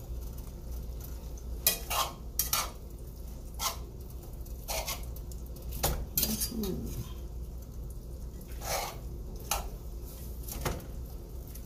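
A slotted metal spoon scrapes and clacks against a pan while beef lo mein noodles and vegetables are stirred and tossed: irregular knocks and scrapes about once a second, over a steady low hum.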